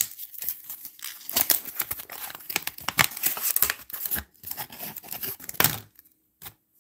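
Wax-paper wrapper of a sealed baseball card pack being torn open and crinkled: a dense run of crackling paper rustles for several seconds, stopping shortly before the end.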